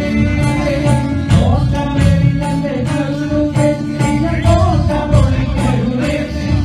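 Two male voices singing a Malayalam song as a duet, with tabla and other percussion keeping a steady beat under them.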